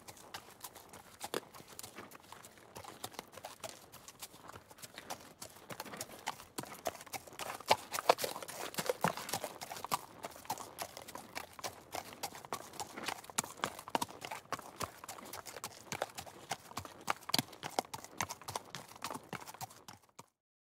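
Horses' hooves clip-clopping as several horses walk, many hoofbeats overlapping, busiest and loudest in the middle. The hoofbeats stop abruptly just before the end.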